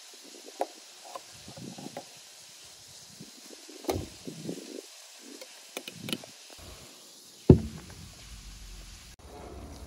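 Scattered clinks, knocks and scrapes of a metal ladle against a metal basin and glass jars as pomegranate juice and seeds are ladled into the jars, with one loud thump about three-quarters of the way through.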